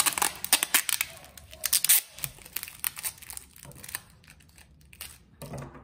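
Plastic rice-package bag filled with sand crinkling as adhesive tape is pulled from the roll and pressed onto it, a run of crackling and tearing noises, busiest in the first two seconds and sparser after.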